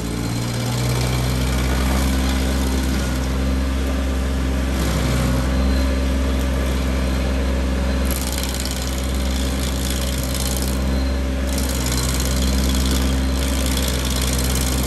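Vermeer SC552 stump grinder running steadily with its cutter wheel grinding into a Bradford pear stump: a constant engine hum under a hiss of grinding that grows louder about halfway through and dips briefly.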